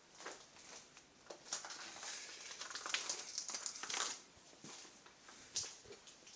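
Footsteps crunching over grit and debris on a littered floor, with irregular crackles and scrapes, busiest around the middle.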